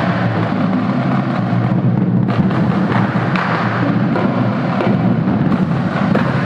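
Marching drumline playing: snare drums, bass drums and crash cymbals beating a dense, continuous rhythm.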